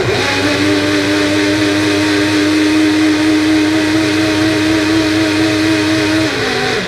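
A small personal countertop blender's motor runs steadily at a constant pitch as it blends blueberries and water into a shake. Its pitch sags a little near the end, and then it cuts off.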